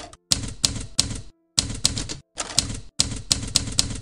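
Typewriter keystroke sound effect: rapid clacking key strikes in short bursts of two to four, with brief pauses between bursts.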